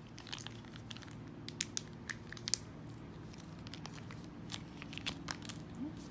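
Plastic dressing sachet crinkling and crackling in the hand as it is squeezed and handled, a scatter of sharp irregular clicks over a low steady hum.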